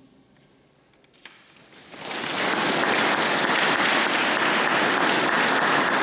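Audience applause breaks out about two seconds in and carries on steadily, after the last of a choir's final chord has faded into a short hush broken by a single click.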